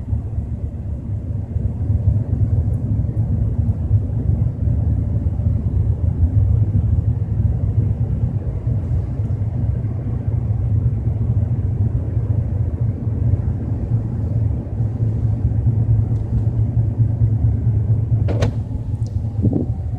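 Low, steady rumble heard inside the cabin of a moving BMW 320i: the unexplained noise that appears at 30 to 40 km/h. A short click comes near the end.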